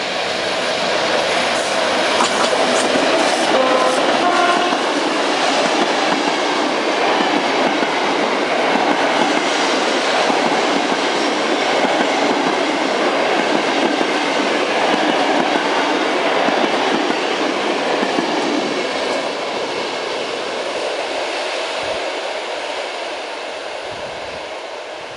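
Express passenger train behind an EP07 electric locomotive running through at speed: the rolling noise of its wheels on the rails builds over the first couple of seconds, holds steady and loud as the coaches go by, then fades as the train pulls away over the last several seconds.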